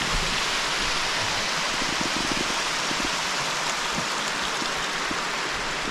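Steady rush of flowing water, like a creek or small waterfall running close by.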